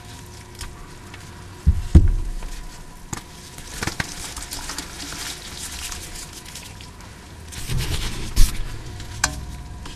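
Water-soaked gym chalk blocks being crushed and crumbled by gloved hands: close, crisp crackling and squishing as the wet chalk breaks apart, with a couple of heavier thuds about two seconds in and again near the end.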